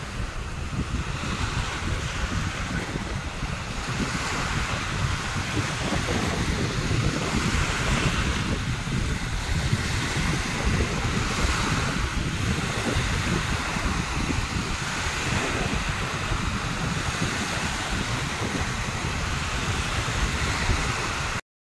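Small sea waves breaking and washing up a pebbly sand shore, the hiss swelling every few seconds as each wave comes in, with wind buffeting the microphone in a low rumble.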